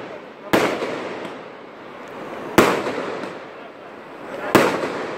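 Fireworks display: aerial shells bursting overhead, three sharp bangs about two seconds apart, each dying away slowly.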